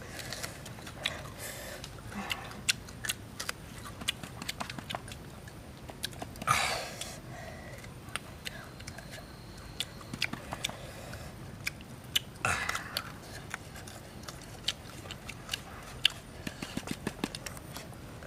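Close-up mouth sounds of someone eating green banana dipped in chili salt: wet chewing with many small clicks and smacks, and two louder bites about six and a half and twelve and a half seconds in.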